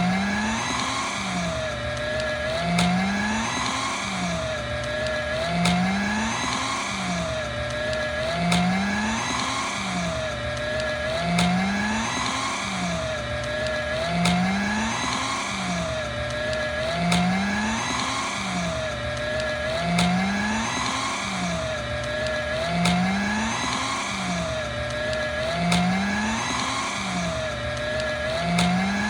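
Paper shredder's motor running under load as it shreds hard paper. Its pitch dips and climbs back in a cycle that repeats about every three seconds, with a brief loudness peak each time.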